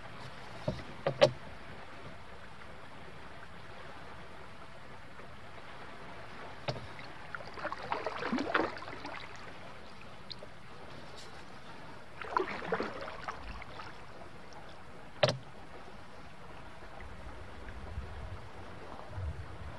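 Canoe on a creek: two swishing, splashing paddle strokes in the water, and a few sharp knocks on the canoe, the loudest about fifteen seconds in, over a steady wash of moving water.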